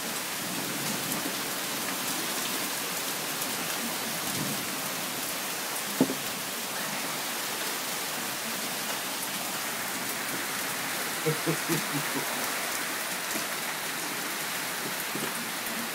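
Heavy rain mixed with hail coming down, a steady hiss, with one sharp knock about six seconds in.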